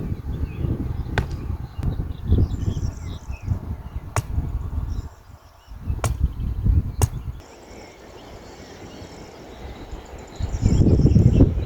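Outdoor sound with low rumbling bursts that come and go, broken by four sharp clicks, over faint high insect chirping.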